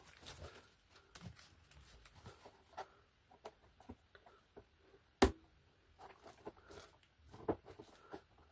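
Faint rustling and light clicks of plastic PTFE filament tubes being handled and pushed into the rear ports of a filament box. One sharp click about five seconds in.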